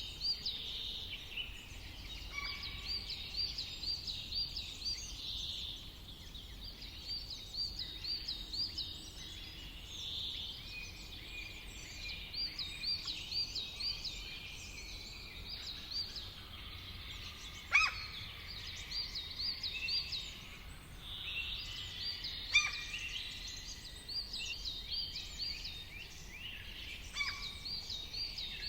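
Several songbirds singing and calling. One bird repeats quick runs of high looping notes every few seconds, and two short, sharp, louder calls stand out in the second half.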